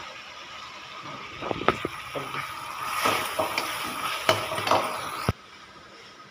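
A metal ladle stirs and scrapes frying masala in a metal kadhai, knocking against the pan several times over a sizzle. It stops abruptly about five seconds in.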